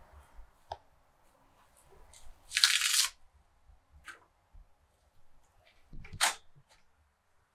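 Fresh parsley and dill being picked and torn by hand, the stems snapping and the leaves rustling. Two louder tearing rustles, the first about two and a half seconds in and the second about six seconds in, among small clicks.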